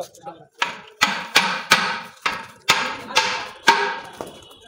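Hammer striking the metal parts of a tractor engine under repair: about eight sharp, ringing blows, roughly half a second apart.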